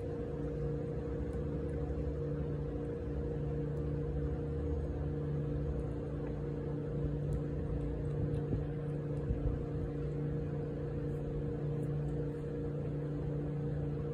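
Steady machine hum: a low drone with a few higher steady tones, holding at an even level. A few faint clicks come in the middle.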